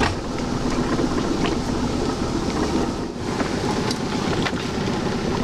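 Small outboard motor on an aluminium dinghy running steadily at low speed, an even drone that holds one pitch throughout.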